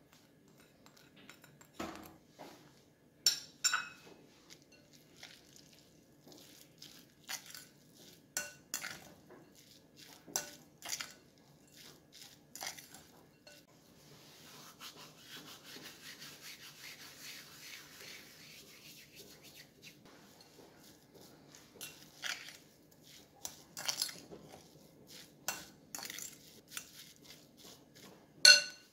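A metal fork stirring and mashing tuna and grated cheese in a glass bowl, clinking and tapping against the glass at irregular moments. In the middle comes a few seconds of steady scraping, and the loudest clink falls just before the end.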